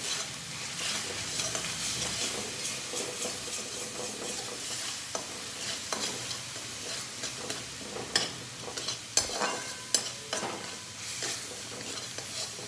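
Onion-tomato masala paste sizzling in oil in a stainless steel pan while a steel spatula stirs and scrapes it round the pan in repeated, irregular strokes. This is the paste being fried with constant stirring.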